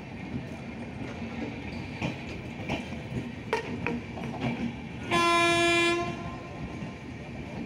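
Passenger sleeper coaches rolling past, their wheels clacking rhythmically over the rail joints under a steady rumble. A little past halfway, a train horn sounds once, a single steady note lasting about a second.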